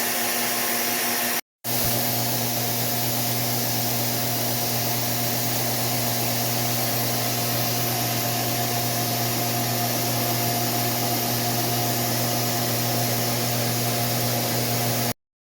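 Steady mechanical whooshing with a low, even hum. It breaks off for an instant about a second and a half in, then runs unchanged until it cuts off just before the end.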